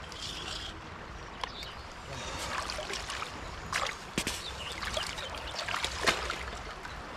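Steady rush of river water with several short knocks and rustles from handling a freshly landed trout to measure it.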